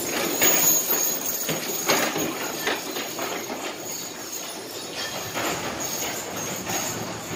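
Team of heavy draft horses passing in harness, hooves thudding irregularly on the dirt arena floor while the wagon's wheels rumble and the harness jingles. It is loudest in the first two seconds as the team goes by close.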